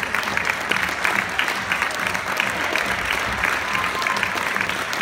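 Audience applauding, many hands clapping steadily and densely without a break.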